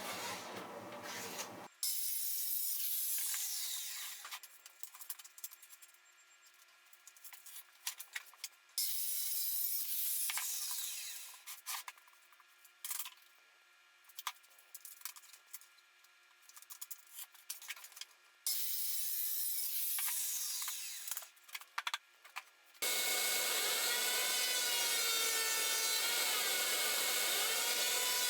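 A power saw cutting wood in three short cuts, each about two seconds long and trailing off as the blade winds down, with light knocks between them. Near the end a different, steady and louder sound comes in and keeps going.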